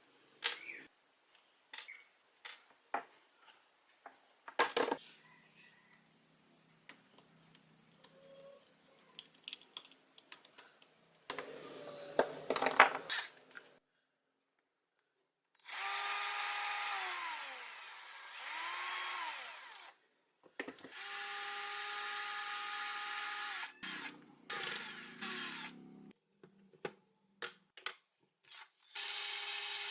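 Small clicks and knocks of metal and plastic parts being handled, with a clattering rattle around the middle. In the second half, a small power drill-driver runs in several bursts of a few seconds each, its motor pitch dropping as it winds down after each, as screws are driven out.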